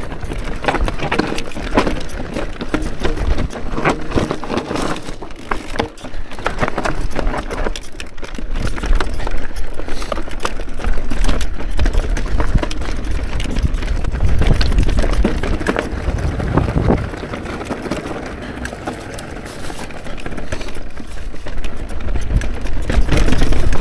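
Electric mountain bike ridden over rocky trail: tyres on rock and the frame, chain and suspension clattering in quick irregular knocks, with wind rumbling on the action-camera microphone, heaviest about halfway through and near the end.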